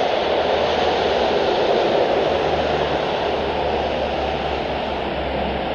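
Rain falling steadily, a continuous even hiss, with a low hum underneath from about two seconds in.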